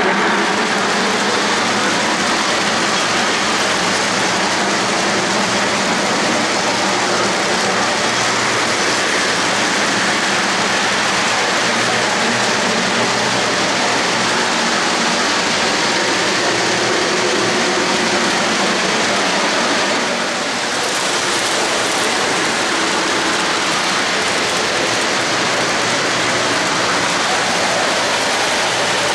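O-gauge model freight cars rolling past on three-rail track: a steady, loud rumble of metal wheels on the rails, with a faint low hum underneath.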